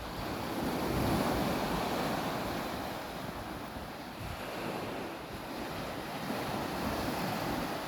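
Sea waves washing on the shore, with wind rumbling on the microphone. The surf swells about a second in, eases off midway and builds again near the end.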